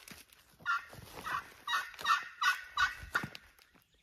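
Turkey calling: a series of about six short notes, roughly a third to half a second apart.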